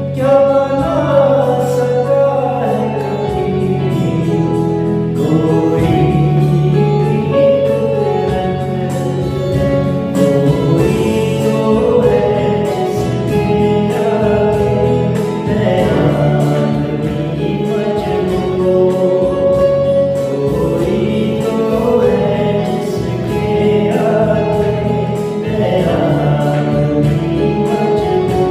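A song sung by a group of voices over instrumental accompaniment, with a steady low drone underneath and a light beat.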